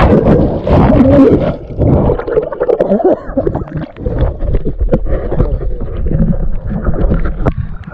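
River water splashing, sloshing and gurgling right at a camera held at the water's surface, with water poured over wooden planks and knocks and bumps as the camera is handled.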